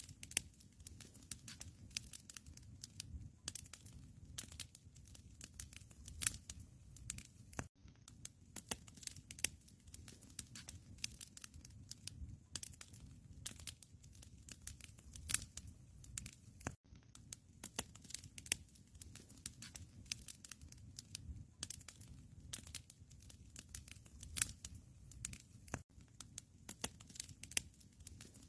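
Wood fire crackling in a fireplace: irregular snaps and pops over a low, steady rumble of flames.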